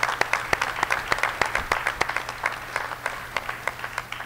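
Audience applause, many hands clapping at once, thinning out and dying away near the end.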